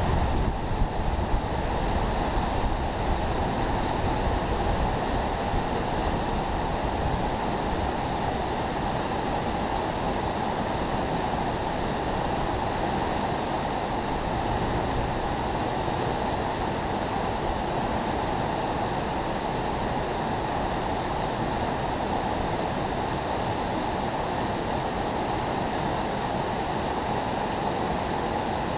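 Steady rush of water pouring through a river spillway, with wind buffeting the microphone, strongest in the first couple of seconds.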